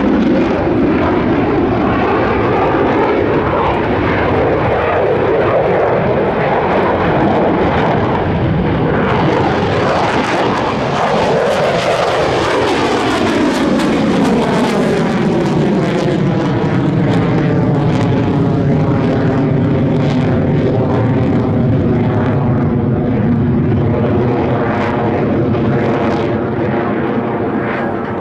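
F-16 fighter jet's General Electric F110 turbofan running at high power through a display manoeuvre: a loud, continuous jet roar whose tone sweeps up and down as the aircraft moves, brightest around the middle as it pulls up into a vertical climb.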